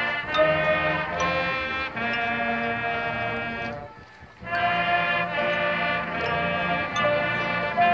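Marching band brass playing a slow tune in sustained chords, the school's alma mater, with a short break between phrases about four seconds in.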